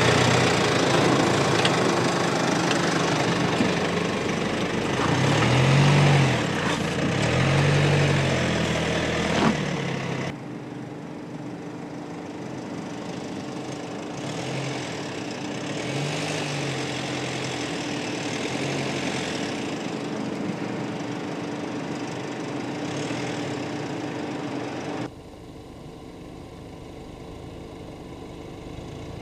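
Mercedes-Benz GLC SUV's engine working under load on off-road slopes, its note rising and falling several times as the throttle is opened and eased. The sound is loudest in the first third and changes abruptly twice.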